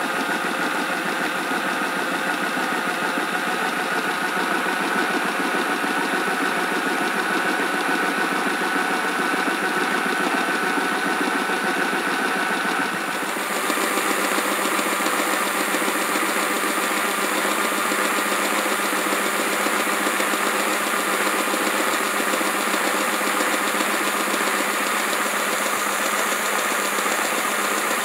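Mantua 0-6-0 'Little Six' HO model steam locomotive running on a roller test stand: its open-frame motor and worm gear whirring steadily, with the drivers spinning on the rollers. It grows a little louder and brighter about halfway through.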